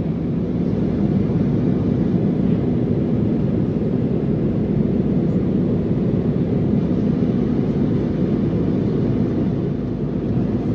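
Steady engine and airflow drone of an airliner heard from inside the cabin on approach to landing, with a low, even hum.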